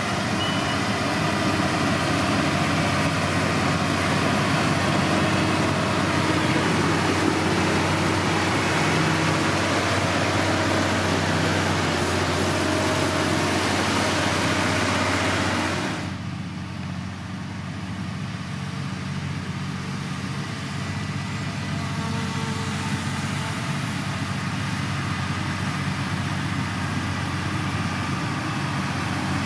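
Heavy diesel engine of road-building machinery running steadily, overlaid by a loud rushing, grinding noise that cuts off abruptly about halfway through, leaving a quieter, steady engine hum.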